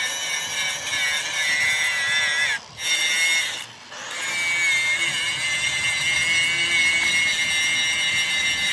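A power tool running with a steady high-pitched whine whose pitch sags now and then under load. It cuts out abruptly twice, briefly, about two and a half and four seconds in.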